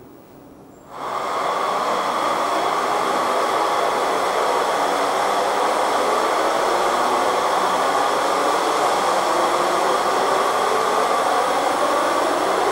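A loud, steady rushing noise that cuts in suddenly about a second in and then holds without change.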